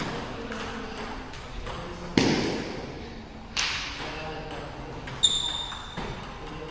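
Table tennis ball being hit back and forth in a rally: sharp clicks off the paddles and the table, about four hits at uneven intervals, each with a short echo.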